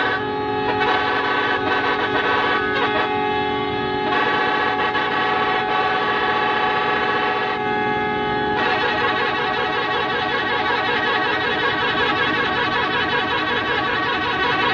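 Musical multi-tone vehicle horn sounding continuously in long held chords, switching to a different set of notes about four seconds in and again about eight and a half seconds in, with a fast warble over the last six seconds.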